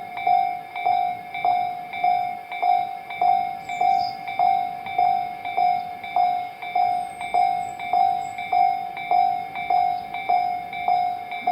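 Japanese railway level-crossing warning bell ringing, an electronic ding repeated evenly about 1.7 times a second: the alarm that sounds while the barriers are down for passing trains.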